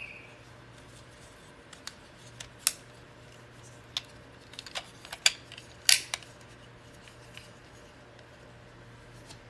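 Sharp plastic clicks and snaps from a DX hawk Ridewatch toy being handled and shifted between its can and watch forms. There are about a dozen separate clicks between about two and six seconds in, the loudest near the end of that run.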